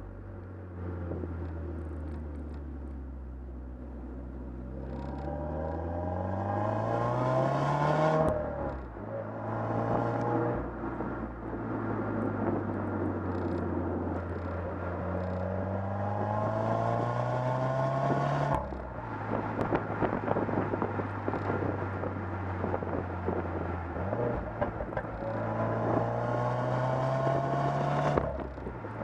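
2015 Subaru WRX's turbocharged 2.0-litre flat-four exhaust, heard from right behind the car, pulling hard through the gears. The engine pitch climbs steadily under acceleration, then drops sharply about eight seconds in, again a little past halfway, and once more near the end.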